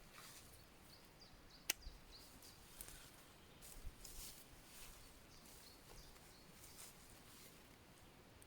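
Near silence: quiet outdoor ambience with faint scattered rustles and one sharp click just under two seconds in.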